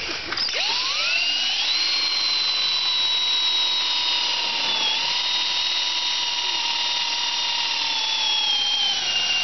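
Cordless drill driving a self-tapping screw through a steel bracket into a timber rail. The motor whine rises as it spins up about half a second in, holds steady with a brief dip near the middle, and sags slowly in pitch toward the end as the screw bites.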